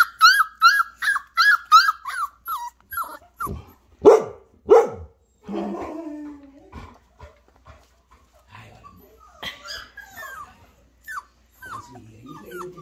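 Flat-coated retriever puppy barking in a fast string of short, high yaps, about three a second, for the first few seconds. Two loud sharp sounds follow around four seconds in, then a few scattered high yips near the end.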